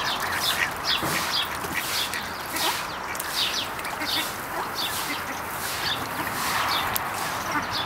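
Domestic ducks calling on the water: a busy run of short, high peeps, several a second, over a steady hiss.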